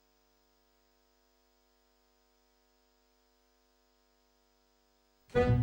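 Faint steady electrical mains hum, then music starts abruptly near the end.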